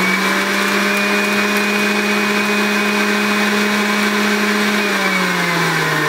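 Hamilton Beach Big Mouth juice extractor's motor running steadily with a whine while juicing apples and lemons. About five seconds in, its pitch starts to fall as the motor slows.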